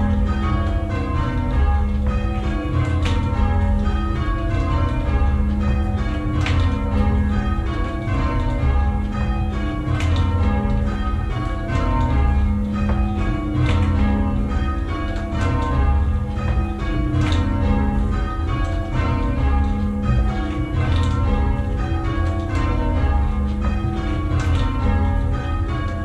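Change ringing on a ring of six church bells in A♭ (9 cwt tenor, five of the bells cast by Henry Penn in 1719), heard from the ringing chamber below. The bells strike one after another in continuous rows whose order keeps shifting, over a low rumble.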